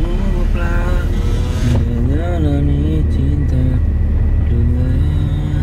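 A song with a singing voice holding long, bending notes plays over the steady low rumble of a car's cabin on the move.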